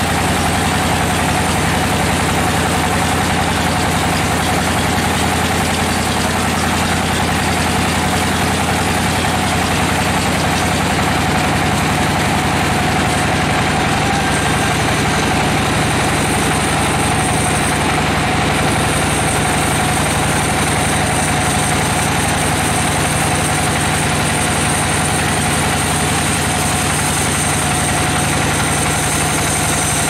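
Bandsaw mill running steadily, its blade sawing through a log of red bayur wood, with a steady low machine hum; a thin high whine comes in about halfway.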